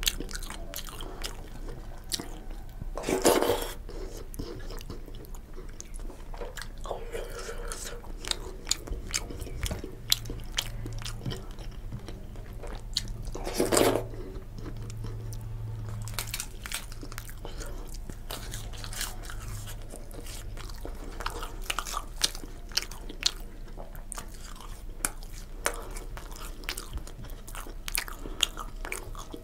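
Close-miked eating by hand: wet chewing, lip smacks and mouth clicks as soft khichuri is eaten, with crisp crunching of papad. Two louder bursts of noise come about 3 and 14 seconds in.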